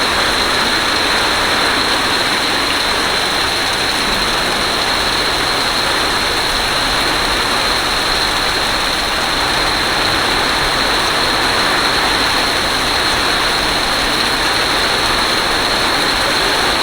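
Steady, loud rushing noise of water during a flash flood, unbroken and even throughout.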